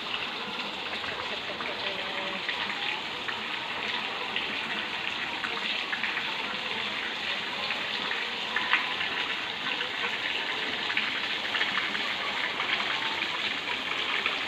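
Water gushing steadily from a pipe into a catfish pond and splashing onto the surface, the pond being topped up with fresh water.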